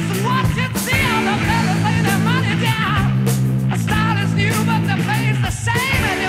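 Background music: a song with a lead singer over a band with steady held bass notes.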